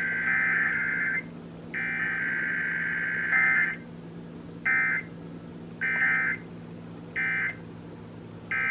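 Emergency Alert System digital data bursts, the harsh two-tone buzzing of the EAS header code, received over FM radio during a Required Weekly Test. A long burst ends about a second in and another runs about two seconds, followed by four short bursts about a second apart, typical of the end-of-message code that closes the test.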